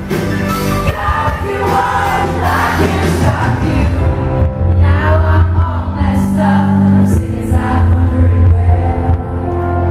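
Live band playing a song with vocals, recorded from the audience at a concert.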